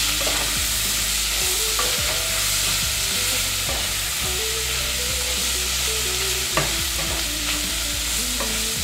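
Onions, garlic and meat sizzling as they fry in grease in a stainless steel pot, stirred and scraped across the bottom with a wooden spoon to lift the browned bits. The spoon knocks on the pot a couple of times.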